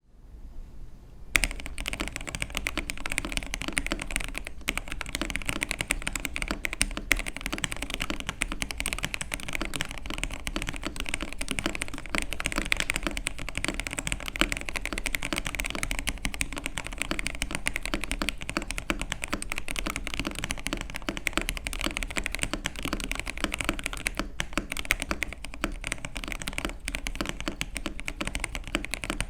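Fast, continuous typing at about 120 words a minute on a Gamakay K87 mechanical keyboard with lubed and filmed Gateron Milky Yellow switches, PBT keycaps and a foam-dampened case: a dense stream of key strikes that starts about a second and a half in.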